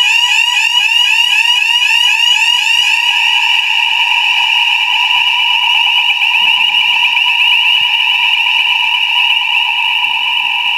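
Electronic fire alarm sounder going off continuously, a loud high tone made of rapid repeating sweeps, about four a second. After about four seconds the sweeps blur into a steadier tone.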